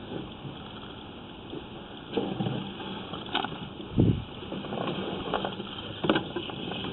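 Sewer inspection camera's push cable being worked through the pipe: a steady hiss with scattered knocks and scrapes, and one dull thump about four seconds in.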